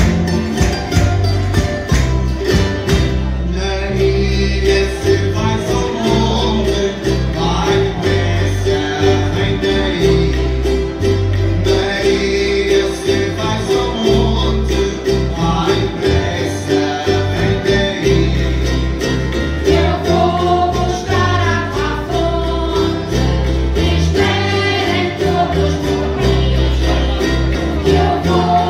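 Madeiran folk ensemble playing a folk song on strummed acoustic guitars and small Madeiran string instruments in a steady rhythm, with voices singing over it in places.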